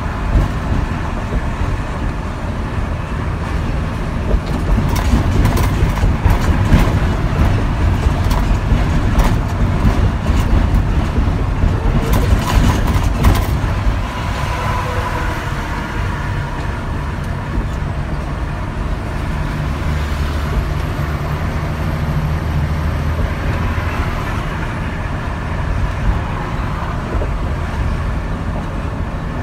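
Heavy diesel truck running at freeway speed, heard from inside the cab: steady engine note and road noise, with a run of clicks and knocks from about 5 to 13 seconds in.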